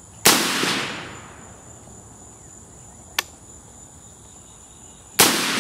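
Two single rifle shots about five seconds apart from a Stag 15 AR-15 in 5.56 NATO with a compensator, fired slowly for groups with 55-grain full metal jacket ammunition; each shot has a fading echo of about a second. A faint sharp click comes about three seconds in, over a steady high-pitched insect buzz.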